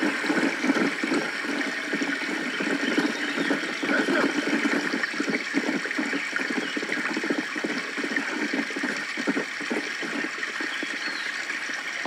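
Steady running water, like a flowing stream, with a continuous gurgle.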